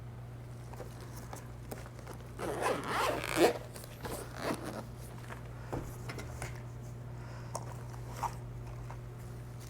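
A short rasping, zip-like scrape about two and a half seconds in, followed by scattered light clicks and taps, as small parts are handled while getting at the disco light's fuses. A steady low hum runs underneath.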